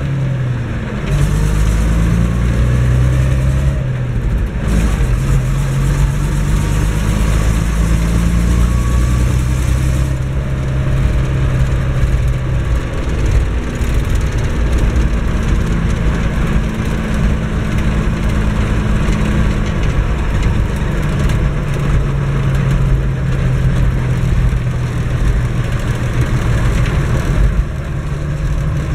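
Diesel engine of an Eicher-built Massey Ferguson 1102 tractor running under way, heard from inside the cab as the tractor drives along. The engine note is steady, with a few small shifts in pitch and level, the first about ten seconds in.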